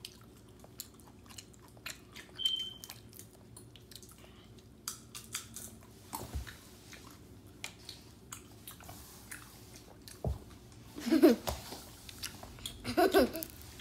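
A child chewing orange segments: a run of small wet clicks and smacks from his mouth. From about eleven seconds in he breaks into short bursts of laughter and voice, louder than the chewing.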